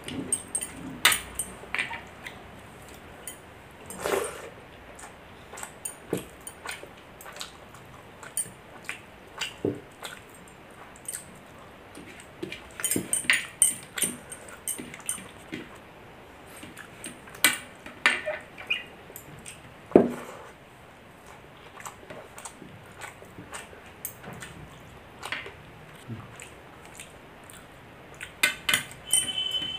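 Close-miked eating sounds: wet chewing and mouth smacks while eating milk rice, with occasional clinks against a plate.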